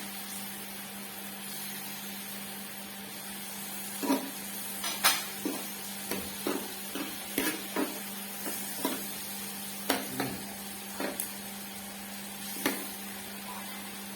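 Eating utensils clicking and clinking against dishes and the grill pan: a quiet stretch, then irregular sharp clicks starting about four seconds in, over a steady low hum.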